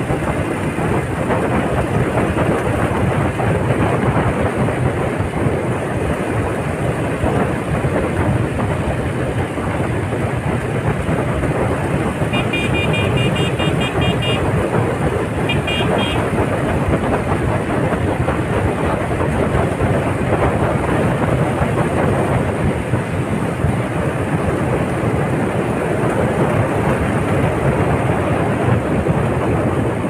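Steady, loud wind rush on the microphone with vehicle and road noise from riding along at speed. Midway come two short bursts of high, rapid beeping, the first lasting about two seconds.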